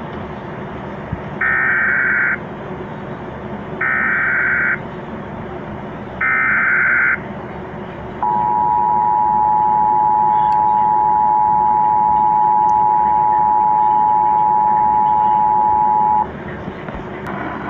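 Emergency Alert System tones: three short, rasping bursts of SAME header data, each about a second long and about two and a half seconds apart, then the two-tone attention signal held for about eight seconds. This is the signal that opens a National Weather Service severe thunderstorm warning. It plays over a steady background hiss.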